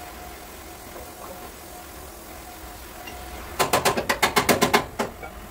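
A hammer striking car body metal in a quick run of about ten sharp blows lasting a little over a second, starting past the middle; before it only a low hum.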